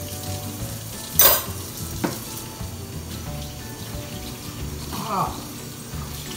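Kitchen faucet running into a sink as dishes are rinsed under it, with one loud, sharp clatter of dishware about a second in and a smaller click a second later.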